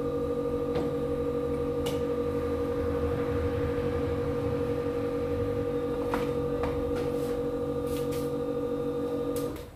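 Steady buzzing hum of an electric motor on the phone-repair bench, which cuts off abruptly near the end. A few light clicks of small tools sound over it.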